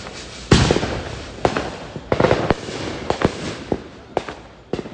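Fireworks going off: a loud bang about half a second in, then a string of sharp bangs and pops, bunched into a rapid run around two seconds in.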